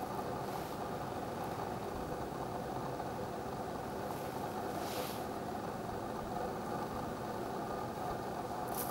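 Steady engine drone with no change in pitch, and a short hiss about five seconds in and again near the end.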